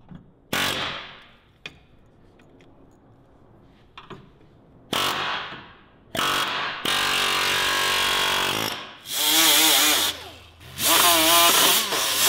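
Handheld pneumatic air tool working on a truck's steel frame. It starts with several short bursts that spin down, then gives longer runs with a whine that wobbles up and down in pitch.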